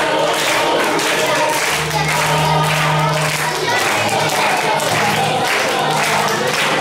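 A song with singing plays, over a steady clapping beat.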